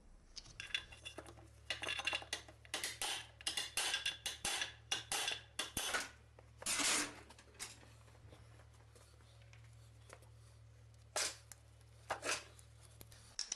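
Small metal gearbox parts and tools being handled: a run of light metallic clinks and scrapes, thick for the first several seconds, then a few more near the end, over a faint steady low hum.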